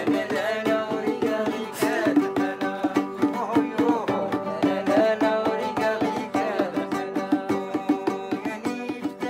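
Acoustic guitar playing a Middle Eastern-style tune with fast plucked and strummed notes over a steady percussive beat.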